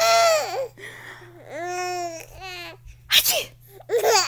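Exaggerated 'ah-choo' sneezes in a drawn-out, high voice, with a small child laughing between them. A sharp sneeze burst comes about three seconds in.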